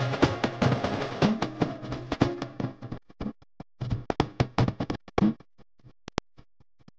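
Background music with a drum beat; about three seconds in the full arrangement drops away, leaving scattered drum strokes that thin out and stop near the end.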